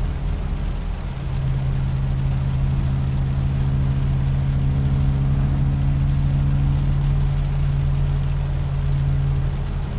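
Car engine and road noise heard inside the cabin while driving on a wet road: a steady low drone over the hiss of tyres on water. The drone drops away briefly near the start, then holds steady.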